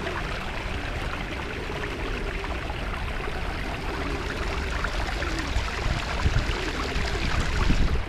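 Steady rush of running water over a low rumble.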